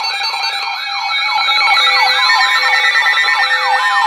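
Several electronic alarm sirens sounding together as an emergency-alert intro: a falling whoop repeating about three times a second under a faster high warble, over steady held alert tones.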